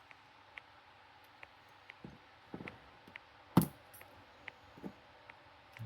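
Light clicks and small knocks from a Medeco Biaxial lock cylinder being handled and turned back to the locked position, with one sharper knock about three and a half seconds in.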